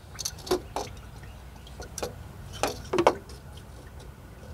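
A razor blade scraping old thermostat gasket off the metal seat on the engine. It makes a run of short, sharp, irregular scrapes and clicks, about seven of them.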